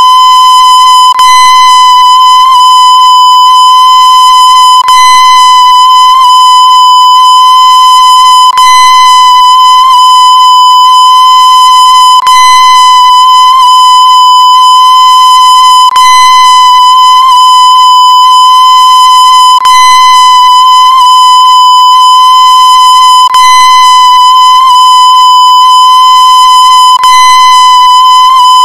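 A loud, steady electronic tone at about 1 kHz, held without a break, with a short click repeating about every four seconds.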